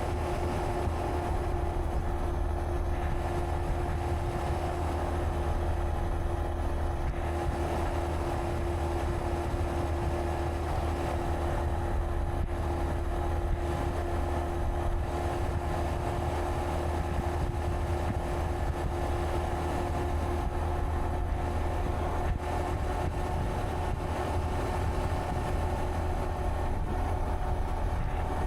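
Honda Monkey 125's single-cylinder four-stroke engine running at a steady cruising speed, with a constant low road and wind rumble.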